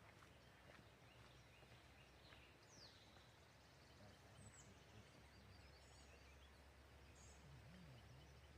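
Near silence of open woods, with a few faint, high bird chirps, one a quick downward-sweeping whistle about three seconds in.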